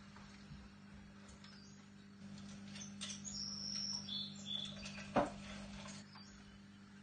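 Blue-and-yellow macaw shifting and climbing on its perch stand: faint scratching and ticking of claws and beak on the wood and metal, with a few short high squeaks and one sharp click a little after five seconds in, over a steady low hum.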